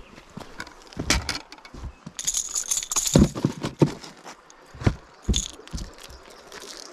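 Irregular knocks, clicks and jingling rattles of a caught white bass being handled into a plastic ice cooler, with a few heavier thumps, and the metal rattle of a Rattletrap lure and fishing pliers as the hooks are worked free.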